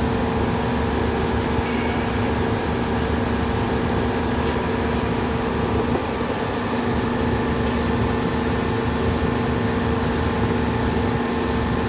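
A steady mechanical hum with a constant low tone and a low rumble under it, unchanging throughout, with a faint knock about six seconds in.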